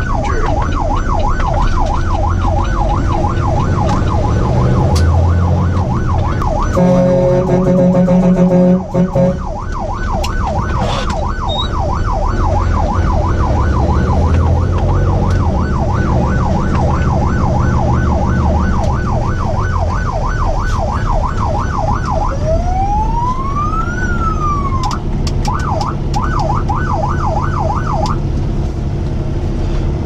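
Electronic emergency siren sounding in a rapid yelp, heard from inside a heavy truck's cab over the diesel engine running. A steady horn blast of about two seconds cuts in around seven seconds in. Later the siren switches briefly to one slow rising and falling wail before going back to the yelp.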